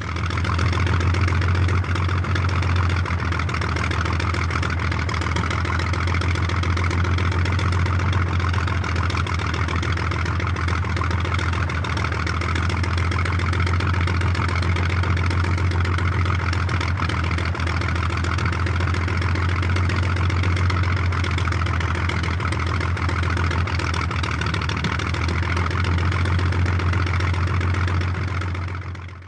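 Fokker D.VII biplane's piston engine idling steadily, with a strong low hum.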